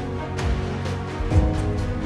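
Background music with sustained notes and a beat about once a second.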